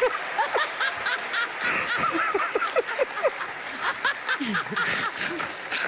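Several people laughing hard together, with short overlapping peals of laughter over the murmur of an audience.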